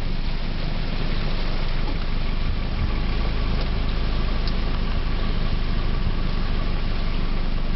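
Wind buffeting the microphone in steady rain: a constant low rumble under an even hiss, with a faint steady tone in the middle stretch.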